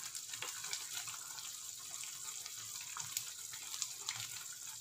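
Thick ginger and sugar syrup bubbling in a pan: a steady hiss with many small pops, as the mixture thickens toward its setting stage.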